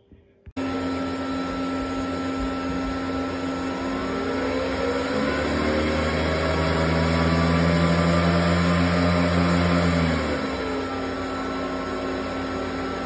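Antminer L3+ ASIC miner powering on: steady fan noise begins suddenly, climbs in pitch a few seconds in as the cooling fans spin up, holds at speed, then falls back near the end.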